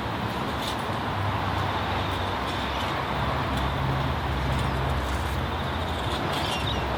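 Forced-air waste oil burner running steadily into a small furnace: a constant noise of air and flame with a low blower hum that shifts slightly in pitch, and a few faint crackles.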